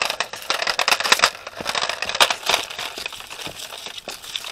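Footsteps crunching through dry fallen leaves, with irregular crackling and a few louder crunches about a second apart.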